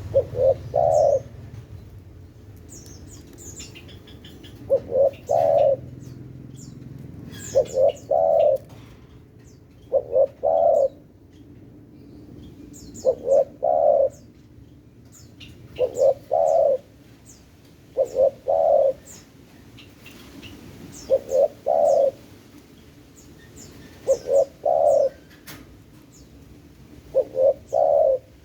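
Spotted dove (tekukur) cooing: each phrase is two quick short notes and then a longer coo, repeated about every two and a half to three seconds. Faint high chirps of small birds sound in between.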